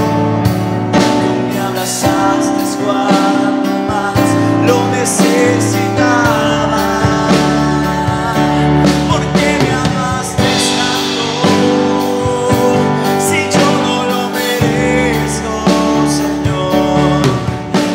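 Worship band music with drums, guitar and a singing voice, playing steadily.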